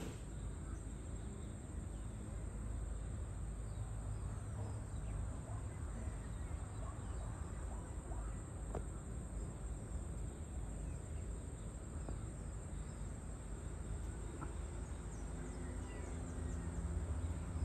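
Outdoor ambience: a steady high insect drone over a low rumble, with a few faint bird chirps. Near the end a vehicle's engine grows louder as it approaches.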